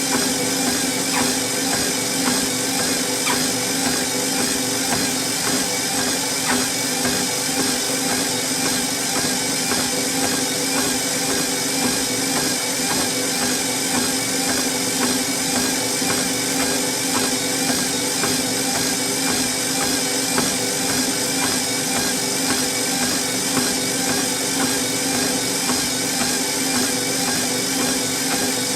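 Treadmill running steadily: an electric motor hum with a few steady tones and a high whine over the belt's hiss, with the faint light patter of someone walking on the belt.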